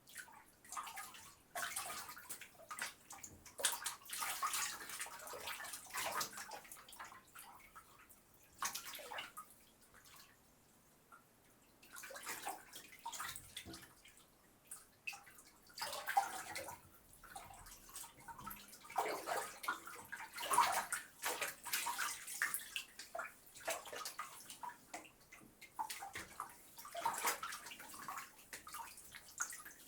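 A person washing in water, splashing and sloshing in irregular bursts with short quiet gaps between them.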